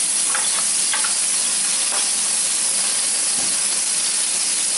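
Bacon-wrapped potato slices sizzling steadily on a Severin electric grill, the bacon fat spitting and burning with smoke. A few light clicks of a utensil on the wire rack come in the first two seconds.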